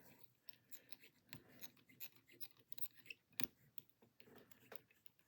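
Faint small clicks and light scraping of fly-tying work: thread wrapped around lead barbell eyes on a streamer hook and the bobbin and tools handled at the vise, with one sharper click about three and a half seconds in.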